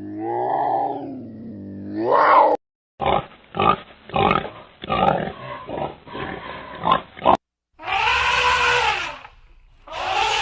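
Farm animal calls in a row: a drawn-out pitched call bending up and down, then about four seconds of rapid short grunts, then two shorter pitched calls near the end.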